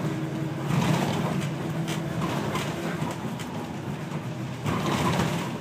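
A Thomas C2 school bus driving, heard from inside the cabin: a steady engine drone with rattling and clattering from the body. It swells louder about a second in and again near the end.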